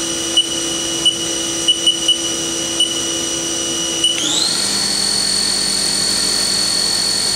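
The brand-new spindle of a 1999 Haas VF-0E vertical machining center runs with a steady high whine at 4,000 RPM. About four seconds in, its pitch rises quickly and settles higher as the spindle speeds up to 6,000 RPM. A few light clicks come in the first half.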